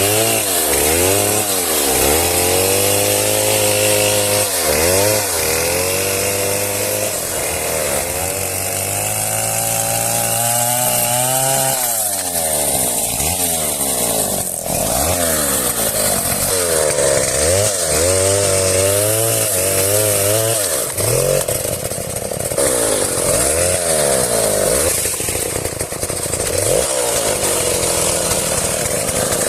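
Chainsaw engine revving up and dropping back again and again, every second or two, now and then held at high revs for a couple of seconds.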